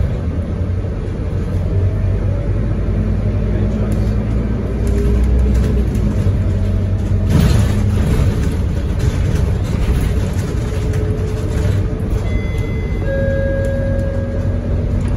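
A Scania K230UB single-decker bus's five-cylinder diesel engine running under way, heard from inside the cabin as a steady low drone with road noise. The sound swells briefly about halfway through, and a few short high tones sound near the end.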